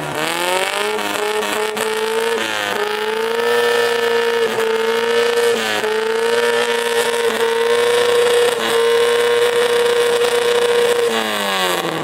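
Classic Mini's A-series four-cylinder engine, through a loud exhaust, revved up and held at high revs for a sound-level reading. The pitch climbs in the first second, holds steady with a few brief dips, then falls back as the throttle is released near the end.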